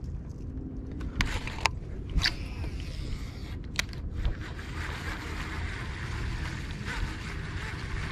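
Baitcasting fishing reel being handled: several sharp clicks and taps in the first four seconds, then a steady soft whir as the reel is cranked. A low rumble of wind on the microphone runs underneath.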